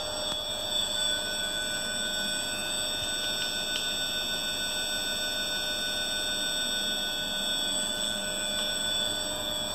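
Three-phase induction motor driven by an ABB ACS355 variable-frequency drive, running with a steady electrical whine made of several held high tones.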